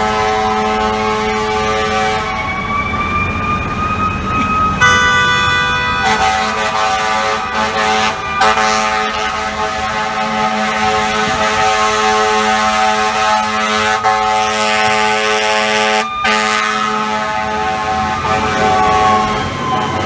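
Fire truck's air horn blaring in long, steady blasts over its wailing siren, which climbs in pitch over the first few seconds and falls away near the end; a sharper horn blast stands out about five seconds in, over the rumble of city traffic.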